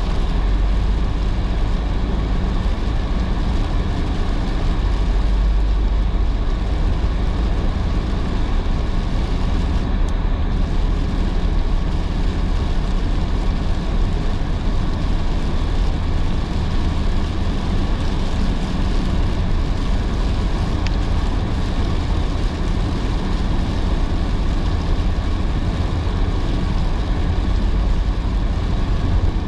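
Car driving on rain-soaked roads: a steady low rumble of engine and tyres under an even hiss of wet road spray and rain.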